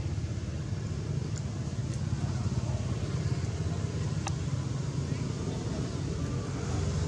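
Steady low outdoor background rumble, with a single faint sharp click about four seconds in.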